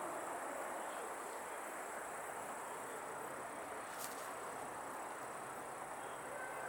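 Outdoor ambience: a steady background hiss with a continuous high, thin insect drone, like crickets, and one brief click about four seconds in.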